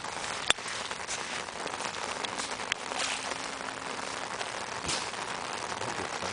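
Steady rain falling, with a sharp click about half a second in and a smaller one just before the three-second mark.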